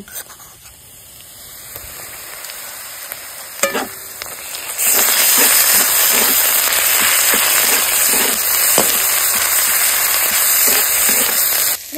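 Sliced onions and ginger-garlic paste sizzling in hot oil in a metal wok, stirred with a metal spatula that scrapes the pan now and then. The sizzle is quieter at first and jumps much louder about five seconds in.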